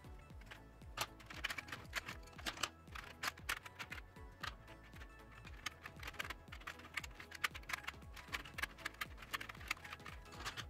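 Wooden watercolor pencils clicking and clattering as they are picked up and set back one by one into a metal tin, in quick irregular taps throughout, over soft background music.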